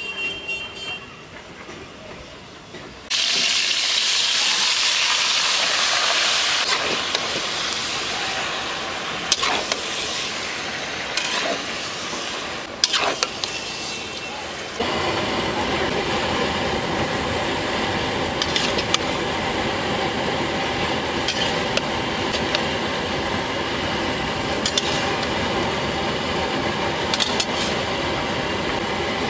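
Raw chicken pieces sizzling in hot oil in a large steel karahi, stirred with a metal spatula that scrapes and clinks against the pan now and then. The hiss starts about three seconds in and grows fuller about halfway through.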